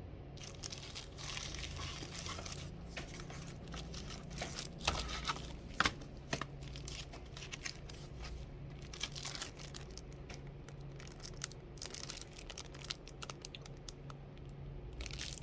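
Crinkling and rustling of something being handled, with scattered sharp clicks, two louder ones about five and six seconds in, over a low steady hum.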